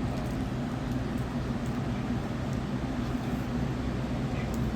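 Electric fan running with a steady low hum, and a few faint light clicks over it.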